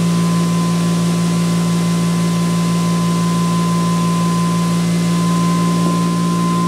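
ReGenX generator prototype and its electric-motor prime mover running at about 3,400 RPM: a loud, steady hum with a fast, even pulse and a constant thin high tone above it.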